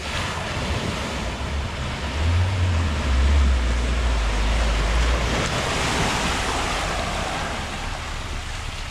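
Water surging and splashing as a 2019 Suzuki Jimny wades through a deep creek crossing, pushing a bow wave, with a low rumble from its 1.5-litre four-cylinder petrol engine. The wash grows louder toward the middle and eases as the car climbs out near the end.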